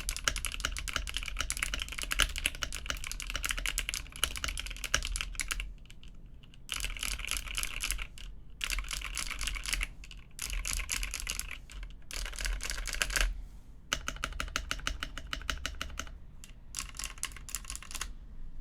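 Typing on a custom EVO70 mechanical keyboard with Cherry MX Hyperglide linear switches, an aluminium plate in an FR4 case, PBT keycaps and no foam. Fast runs of keystrokes are broken by short pauses every couple of seconds. The switches are not yet broken in and have an audible scratch.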